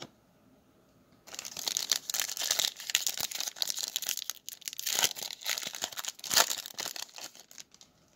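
Foil trading-card pack crinkling loudly as it is handled and torn open by hand, a dense crackle that starts about a second in and stops shortly before the end.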